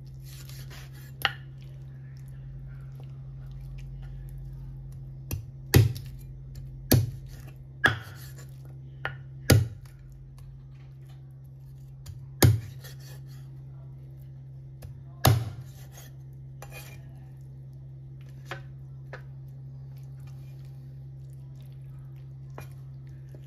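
Cleaver chopping raw chicken on a thick round wooden chopping board: about a dozen sharp chops at irregular intervals, the heaviest between about six and fifteen seconds in, then a few lighter taps. A steady low hum runs underneath.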